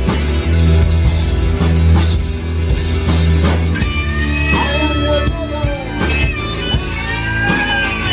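Live rock band playing, electric guitar prominent over bass and drums, with bending lead lines in the second half.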